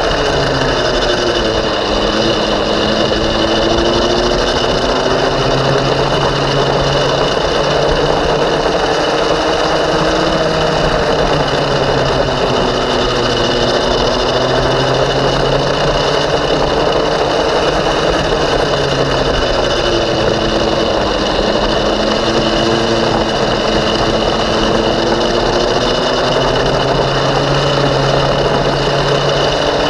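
Go-kart engine at racing speed, heard close up from on board; its pitch falls and climbs again several times as the kart slows and speeds up around the track.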